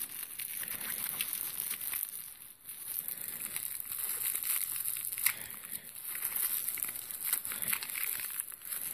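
Thin clear plastic bag crinkling and crackling as fingers work a coin out of it. The crinkling comes in uneven bursts of small clicks, with a short lull about two and a half seconds in, over a steady high hiss.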